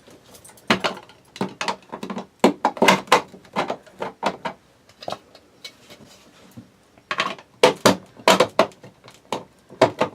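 Irregular clicks and knocks of hard plastic being handled, as an RV light fixture's cover and slide switches are worked, in two bunches with a short pause between.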